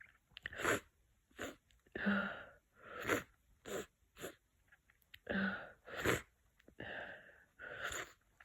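A person with a head cold sniffing and catching short breaths through a congested nose, about ten quick noisy bursts. Two of them, about two seconds in and about five and a half seconds in, carry a brief voiced "ah".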